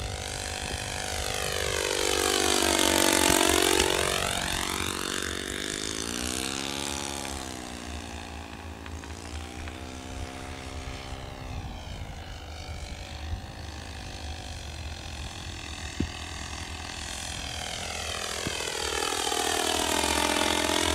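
Model airplane's OS FS-26 Surpass single-cylinder four-stroke glow engine running in flight, propeller buzzing steadily. Its pitch sweeps down and back up as the plane passes by, about three seconds in and again near the end.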